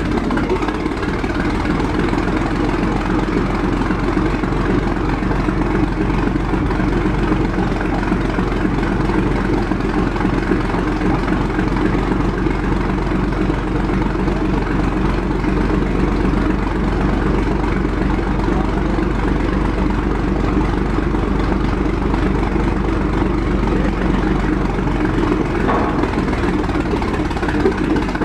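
Engine of a 1917 Holt 120 crawler tractor running steadily at a constant speed, held a bit fast for its new, stiff tracks.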